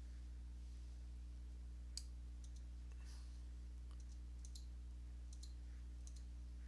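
Computer mouse clicking about eight times, sharp single clicks and some quick pairs, over a steady low electrical hum.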